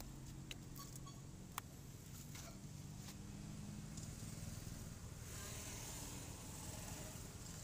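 Faint hum of a motor vehicle engine, with a few sharp clicks in the first three seconds.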